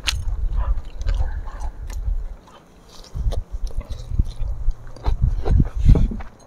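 People biting and chewing food close to the microphone: uneven soft low thuds with scattered small clicks, strongest near the end.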